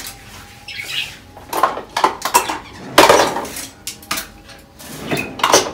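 Dishes and cutlery clattering as they are dried and put away: plates and utensils clinking and knocking together in irregular clatters, the loudest about three seconds in.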